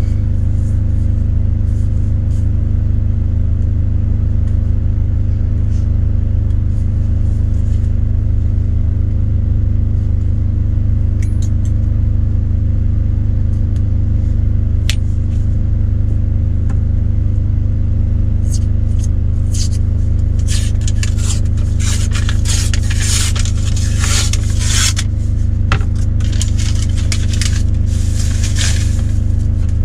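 Steady low drone of an idling diesel engine throughout. Over it, a sharp click about halfway through, then a run of scraping and rustling in the last third as a cardboard tube of refrigerated biscuits is pried open and peeled.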